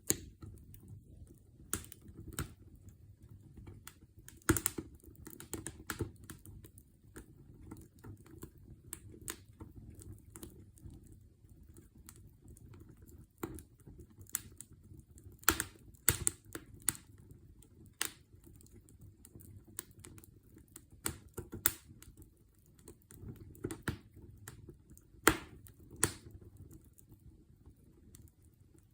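Campfire crackling: irregular sharp pops and snaps over a low, steady rumble of the flames, with a few louder pops, the loudest about four and a half and twenty-five seconds in.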